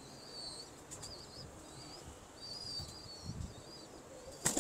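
Small birds chirping faintly, short high chirps repeated over and over, with a low pigeon coo about three seconds in; near the end a brief rapid clatter.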